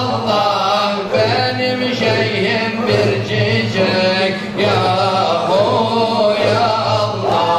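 Men chanting Qadiri Sufi dhikr in a circle devran. A melodic singing voice carries over a low group chant that repeats in short strokes about once a second.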